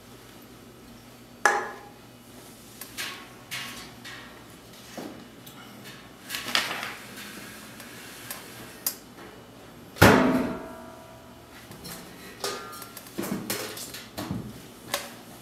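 Scattered knocks, taps and clinks of objects handled on a tabletop, the loudest about ten seconds in. A couple of the clinks ring briefly, as hard objects do.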